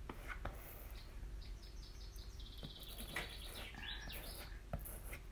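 A bird singing: a run of short high chirps and a quick trill in the middle. Faint taps of fingertips dabbing chalk paste through a silk-screen stencil on fabric.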